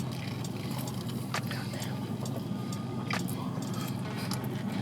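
Chewing on a crispy fried chicken sandwich, with scattered crunchy clicks over a steady low hum like an idling car's cabin.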